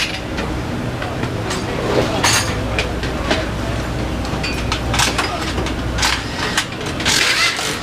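Metal tools and engine parts clinking and knocking in short, scattered clicks over a steady low hum, with voices in the background.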